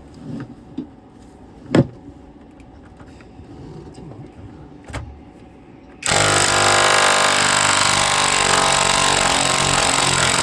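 A few light knocks of tools on metal, then about six seconds in a cordless power tool starts and runs loud and steady at an even pitch, driving a socket on a boat engine's mount bolt to undo it.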